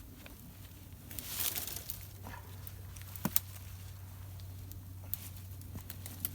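Rustling and light crackling, with scattered sharp clicks, as the downed deer is handled on the ground.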